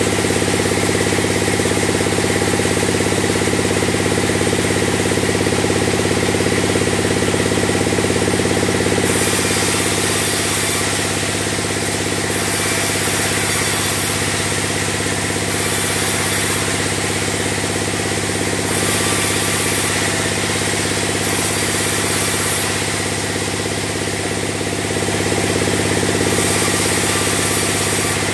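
Large sawmill band saw running with a steady mechanical drone. From about nine seconds in, a high hiss comes and goes in stretches of a second or two as the blade saws timber into beams.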